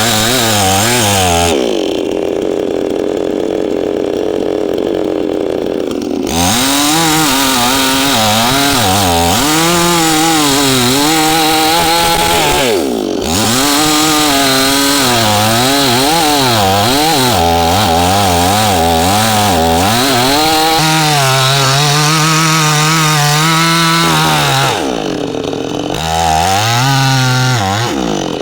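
Chainsaw cutting into a wooden tree trunk, its engine speed rising and falling constantly as the chain loads up in the wood and frees again, with a brief drop about thirteen seconds in.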